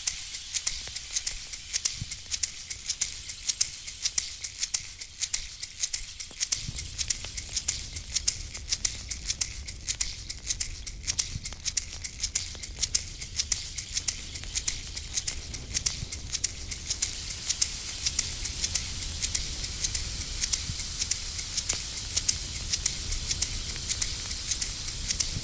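Shaman's rattle shaken in a quick, steady rhythm of dry clicks. A low rumble comes in underneath about six seconds in.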